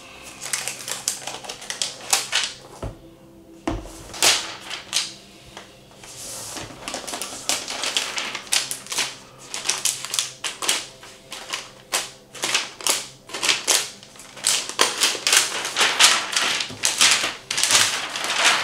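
Clear plastic packing wrap being pulled off a laptop, crinkling and crackling in quick irregular runs. Two dull thumps come about three and four seconds in.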